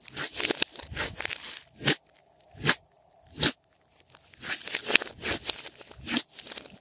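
Glossy slime being kneaded, stretched and pressed by hand, with sticky crackling and popping. Three single sharp pops come in the middle, then a denser run of crackles near the end.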